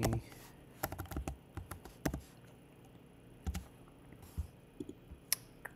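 Sparse keystrokes on a computer keyboard: single key taps at irregular intervals, with pauses of up to a second or so between them.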